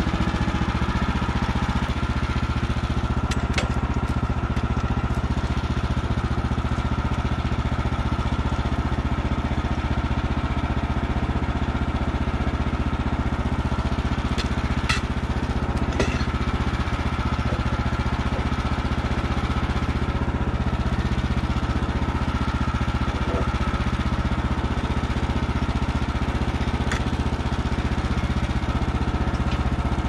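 Woodland Mills HM130max portable bandsaw mill running steadily under load, its engine and band blade cutting a slab off a log as the head is pushed along the track. A few light clicks come through.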